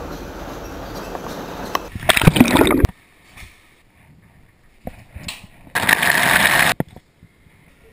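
Short spurts of running water: a brief loud rush about two seconds in and a second rush of about a second near six seconds, as from a shower and a tap into a sink. Before them is a steady whir.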